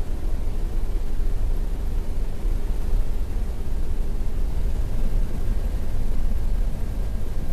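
Steady drone of an aircraft's engine and rushing air heard from inside the cabin in flight, deep and even, with a faint steady hum running through it.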